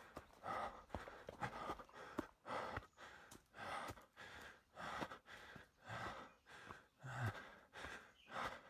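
A hiker's heavy breathing while walking, a breath about every second, with faint footsteps on the trail between the breaths.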